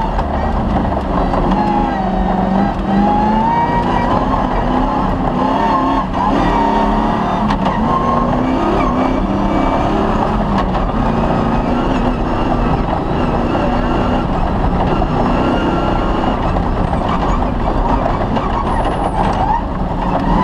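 Cross-country rally car's engine running hard through a special stage, its pitch rising and falling with throttle and gear changes. There are a couple of sharp knocks midway.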